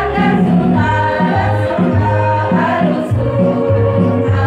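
Women's choir singing together.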